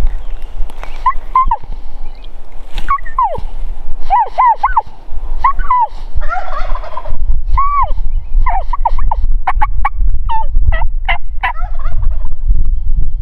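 A roosted Merriam's wild turkey gobbling repeatedly, among a run of sharp, pitched bird calls, over a steady low rumble.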